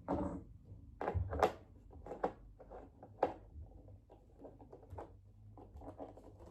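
Clicks and knocks of bolts being screwed into a tripod stand by hand, with a few sharper taps about a second in and again about three seconds in, and faint ticking between.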